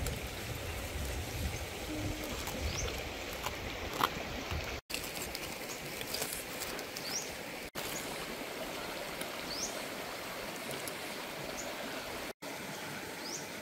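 Banana leaf crackling as a grilled leaf parcel is peeled open by hand, over a steady outdoor hiss with short high rising chirps every second or two.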